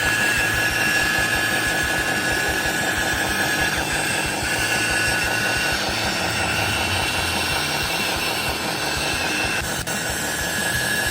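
Electric motors and plastic-and-metal gearboxes of a Huina radio-controlled construction model running, giving a steady high whine over a fast low buzz. The whine is strongest in the first half and fades back about halfway through.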